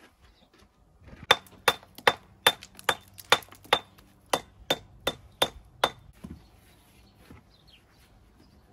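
Hammer blows, about a dozen in a steady rhythm of two or three a second, each with a short metallic ring. The blows start about a second in and stop around six seconds in.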